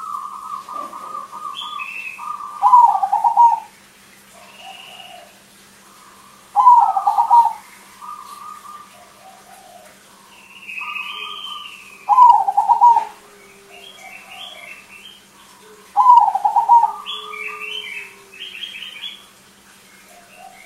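Zebra dove (perkutut, a crossbred bird) cooing in loud phrases of quick staccato notes, one phrase every four to five seconds. Smaller birds chirp higher up between the phrases.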